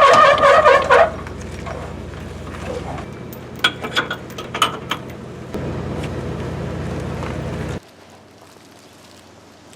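A loud shout or burst of voice at the very start, then a motor humming steadily with a few sharp clicks; the hum shifts abruptly twice and cuts off sharply near the end.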